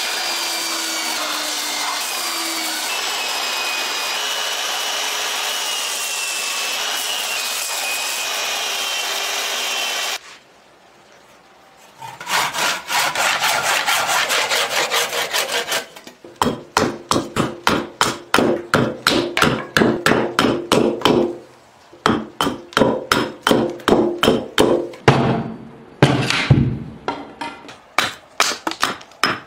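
A belt sander running with a whine that shifts in pitch as wood is pressed against the belt, for about ten seconds. After a brief pause come fast rasping strokes on wood, then steady back-and-forth hand-tool strokes on wood, about two or three a second.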